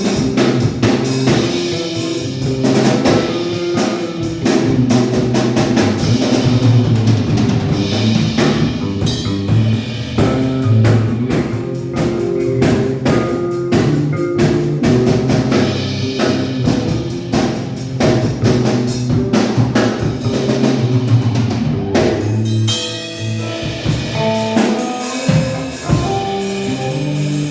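A band playing music, led by a drum kit with bass drum and snare, over sustained notes from pitched instruments.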